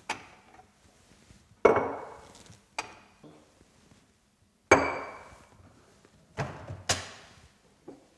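Kitchen wall-cabinet doors with frosted glass panels being lifted open and swung shut: a string of sharp knocks and bangs, the two loudest, about a second and a half and about five seconds in, carrying a short glassy ring.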